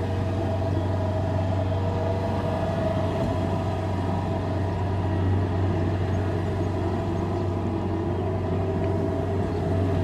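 Kubota DC-70Plus rice combine harvester running steadily while working the field: a continuous engine and machinery drone with a steady higher hum over it.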